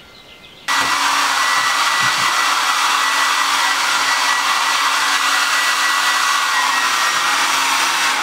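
Handheld hair dryer switched on about a second in and blowing steadily, a loud rush of air with a steady high whine.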